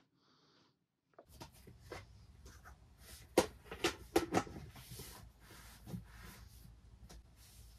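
Hands kneading dough in a plastic bowl: irregular soft knocks, squelches and scrapes, with a cluster of sharper clicks in the middle, over a low steady background hum.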